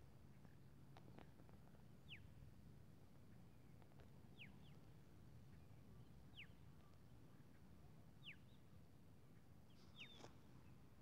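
Faint outdoor ambience: a bird repeating a short, quickly falling whistled note about every two seconds, sometimes doubled, over a low steady rumble.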